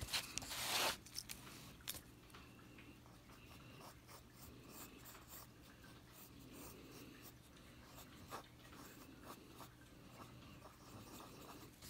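Pencil scratching faintly across sketchbook paper in short strokes while shading a drawing, after a louder rustle of paper and hand in the first second.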